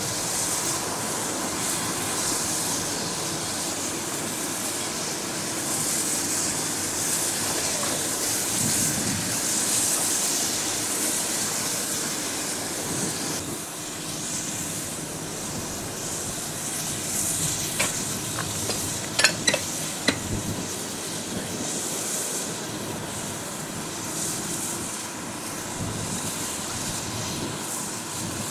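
Caledonian Railway 0-4-4 tank engine No. 419 (55189) standing in steam, with a steady hiss of escaping steam that swells and fades over a low rumble. About two-thirds of the way through there is a brief cluster of sharp metallic clanks.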